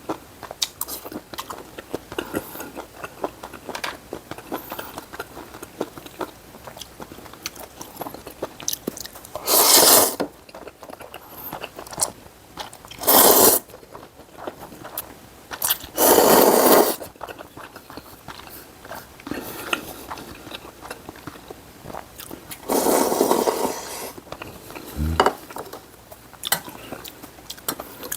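Close-miked eating of spicy seafood noodle soup: wet chewing and small lip-smacking clicks, broken by about five loud slurps of noodles about a second each.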